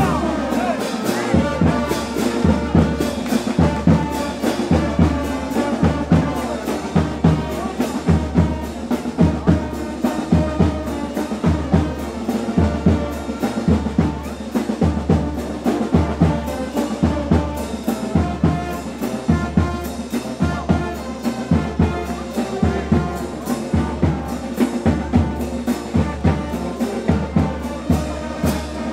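Brass band playing: brass over a steady drum beat.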